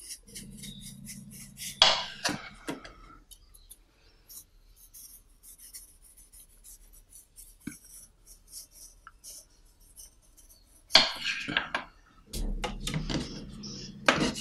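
Kitchen knife slicing the spiny edges off a thick aloe vera leaf, a run of short scraping cutting strokes, louder about two seconds in and again near the end.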